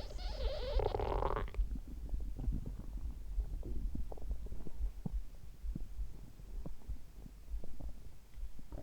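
A person's stomach gurgling, heard close up together with the low thumps of the heartbeat. A long, wavering gurgle dies away about a second and a half in, leaving small pops and gurgles over the steady heartbeat.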